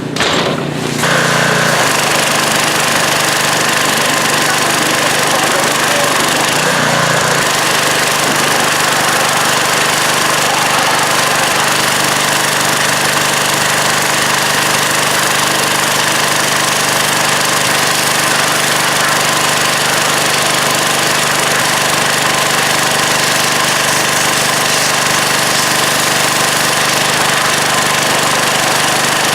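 Pressure washer running steadily: an unchanging motor drone with a high hiss, settling in about a second in.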